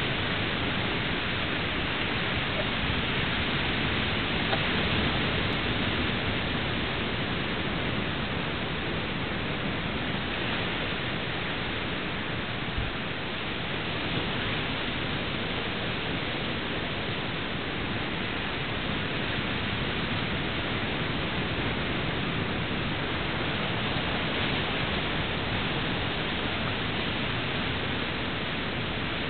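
Ocean surf washing over a rocky shoreline: a steady rush of noise that rises and falls only slightly.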